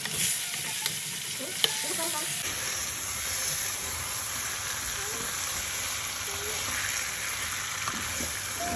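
Chicken pieces and onions sizzling steadily as they fry in a stainless steel pot while a wooden spatula stirs them. A few sharp knocks of the spatula against the pot come in the first two seconds.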